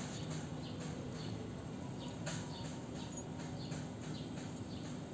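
Small birds chirping in short, repeated high notes, several a second, over a low steady hum.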